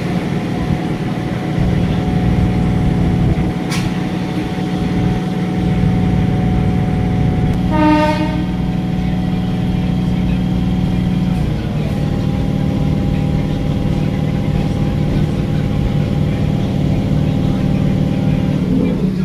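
Motor coach of a local EMU train running, its traction equipment giving a steady hum of several held tones that shift to a different set of tones about eleven seconds in. A short train horn sounds about eight seconds in.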